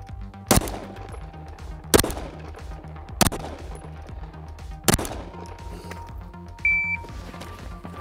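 Four shots from a Flux Raider-X, a SIG P320 pistol in a compact sub-gun chassis, fired slowly in aimed fire, each a sharp crack, about a second and a half apart. Near the end a short high electronic beep.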